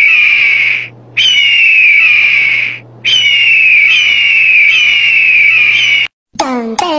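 High-pitched eagle screech sound effect: three long, shrill cries with a wavering, repeatedly falling pitch, the last one the longest, cutting off suddenly about six seconds in.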